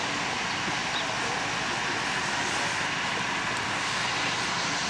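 TU2 narrow-gauge diesel locomotive's V12 diesel engine running steadily while it shunts slowly.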